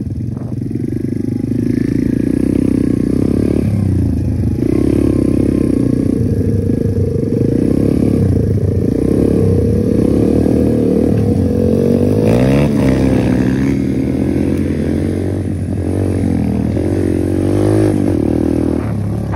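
Dirt bike engine running under throttle, heard from the rider's seat as it rides along a grass track. Its pitch rises in revving sweeps twice in the second half.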